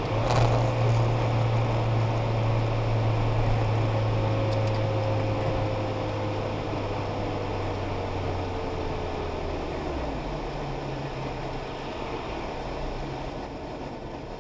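A sharp hit right at the start, a chunk of ice striking the car's windshield. It is followed by steady engine and road noise inside the 1998 Seat Córdoba's cabin. The engine's hum slowly falls in pitch as the car slows and drops away about ten seconds in.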